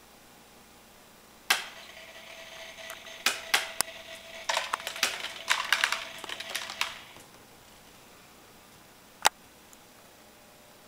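Automatic cat feeder starting with a click and running for about five seconds: a faint steady motor hum under dry kibble rattling and clattering down. A single sharp click follows a couple of seconds after it stops.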